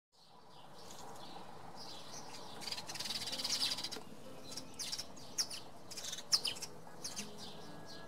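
House sparrows chirping: a busy run of short, high chirps about three seconds in, then scattered single chirps.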